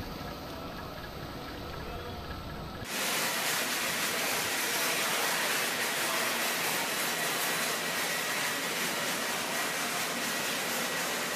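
Water from a robotic aircraft washer spraying against an F-16's underside and splashing on the wet hangar floor. About three seconds in it switches abruptly to a louder, steady hiss with a faint high whistle.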